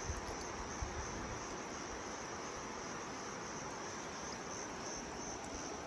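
Crickets chirring in a steady, continuous high-pitched chorus.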